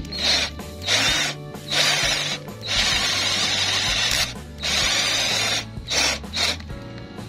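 Power drill driving a 22 mm Forstner bit into plywood, boring a flat-bottomed counterbore, run in about seven short bursts of the trigger, the longest about a second and a half, with the bit cutting and throwing out wood chips.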